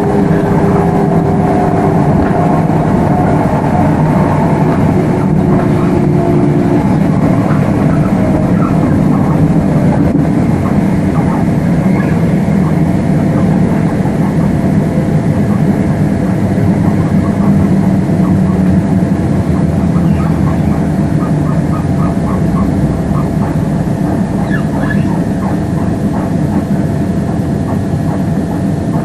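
Class 357 electric multiple unit running along the line, heard from inside the carriage: a steady rumble of wheels on rail. A motor whine fades out within the first several seconds, and light squeaks and clicks come and go.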